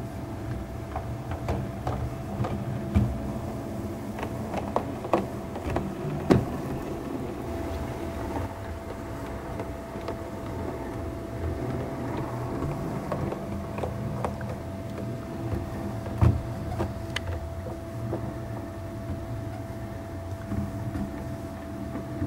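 O gauge model tank locomotive running under DC control: its small electric motor gives a steady whine, and its wheels click and clack irregularly over rail joints and points.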